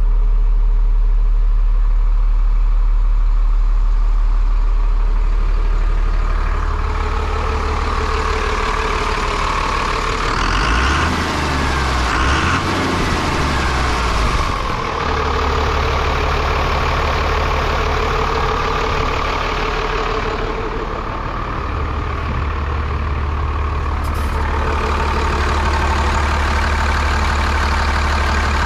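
Diesel engine of a 1996 Freightliner FL70 truck running steadily. It is deep and low at first, then heard up close at the open engine bay from about six seconds in, where it idles with a fuller, brighter sound.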